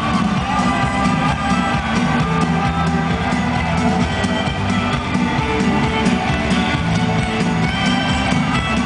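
Live band music played loud over a concert PA, a dense steady mix with a regular beat.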